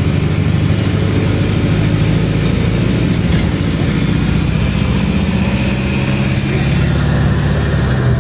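City bus under way, heard from inside the passenger cabin: a steady low engine drone with road noise.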